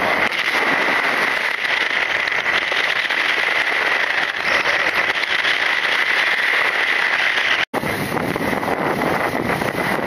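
Steady rush of wind and vehicle noise from riding along a road, with a steady high-pitched tone over it. The sound drops out for an instant about three-quarters of the way through.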